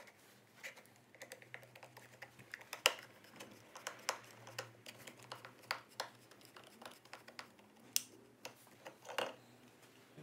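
Hand screwdriver driving small screws into the lid of a 3D-printed plastic box: irregular sharp clicks and scrapes of the steel tip and screws on plastic, with the parts being handled. The sharpest click comes about three seconds in.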